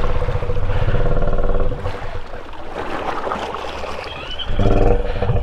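2021 Honda Rubicon ATV's single-cylinder engine, fitted with an RJWC aftermarket exhaust, running while the quad sits nearly submerged in a pond. It cuts off a little under two seconds in, leaving water sloshing and churning around the machine. It starts back up about four and a half seconds in.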